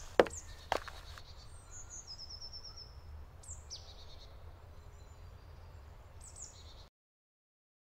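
Forest birds calling over a steady low rumble: a short rapid trill about two seconds in and a few high, falling chirps later. A few sharp clicks come in the first second, and the sound cuts off to silence near the end.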